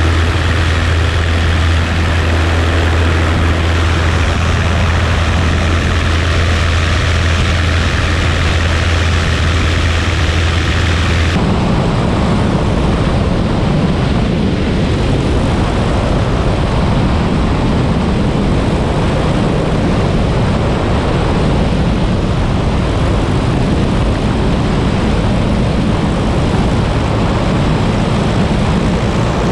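Piper Pacer light aircraft's engine and propeller running, a loud steady low drone. About eleven seconds in the drone changes abruptly to a rougher, slightly higher in-flight drone.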